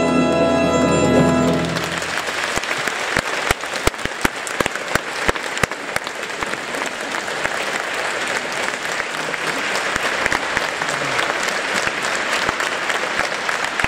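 Theatre orchestra holding the final chord of a ballet coda, which cuts off about two seconds in. An audience then applauds, with a few sharp, loud individual claps standing out early in the applause.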